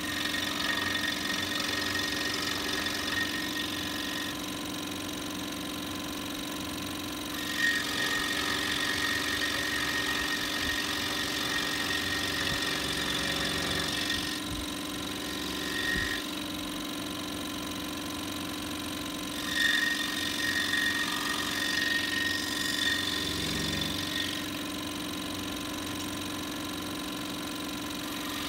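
Scroll saw running steadily with its motor hum, its blade cutting through a small wooden block in three louder stretches, with quieter running between them as the piece is turned.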